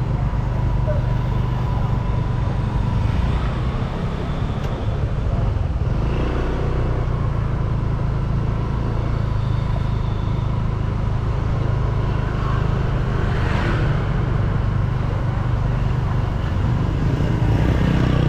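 Street traffic: cars and motorcycles running, with a steady low engine rumble throughout.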